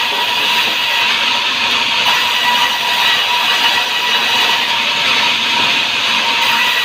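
Sawmill saw cutting hardwood timber: a loud, steady hiss with a constant high whine over it and no break.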